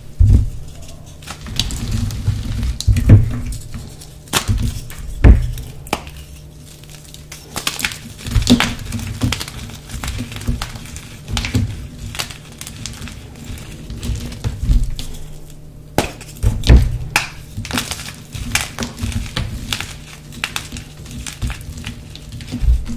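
Blocks of gym chalk, some dyed teal, crumbling and crunching as hands squeeze and break them over a bowl of chalk powder: irregular crisp crunches and soft powdery thuds.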